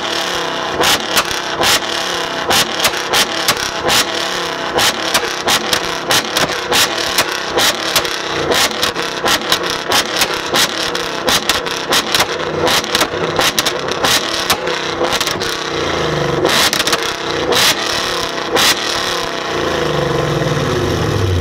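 Ford Mustang GT's V8 held at high revs, its Borla exhaust popping and banging in rapid, irregular cracks, the pattern of a two-step rev limiter.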